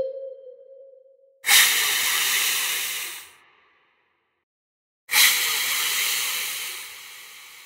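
Two loud bursts of hissing, each starting suddenly. The first comes about a second and a half in and cuts off after nearly two seconds; the second comes about five seconds in and fades away slowly.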